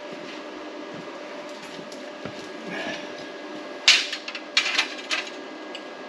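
Steel 1-2-3 blocks being set down and knocked against a steel plate: a quick run of four or five sharp metal clanks about four seconds in, over a steady shop hum.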